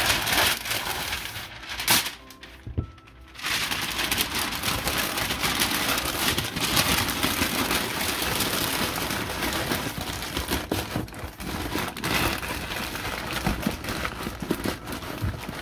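Brown packing paper being crumpled and stuffed into a cardboard box as a top layer of cushioning: a dense crackling rustle that eases briefly about two seconds in, then runs on.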